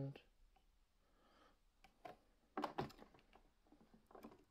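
Faint clicks and knocks of batteries being pressed into a plastic toy's battery compartment: a few taps about two seconds in and again near the end, with near silence between.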